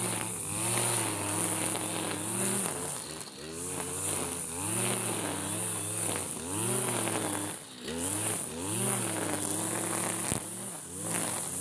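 Backpack brush cutter's engine running under load while cutting grass. Its pitch rises and falls over and over as the throttle is opened and eased with each swing, and it dips briefly near the end.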